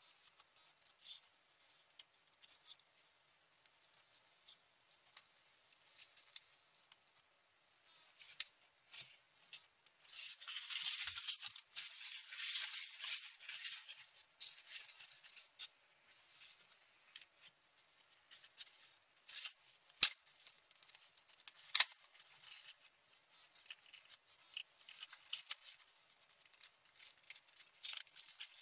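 Paper origami units being folded and handled: scattered crisp rustles and creasing sounds, with a denser stretch of rustling about ten seconds in and two sharp clicks later on.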